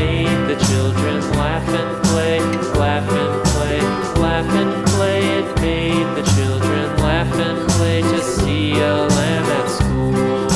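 Instrumental background music with a steady beat and a plucked-guitar, country feel.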